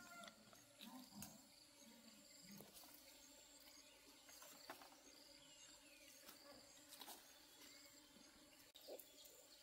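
Near silence: faint rural ambience with a steady high insect drone, a few soft low sounds in the first three seconds, and scattered faint clicks.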